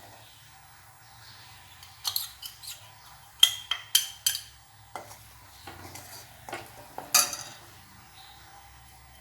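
A spoon clinking and scraping against a pan as chili powder is stirred into the spice mix, about a dozen sharp clinks in irregular succession.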